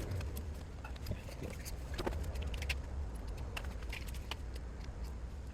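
Scattered light metallic clicks and clinks over a steady low hum.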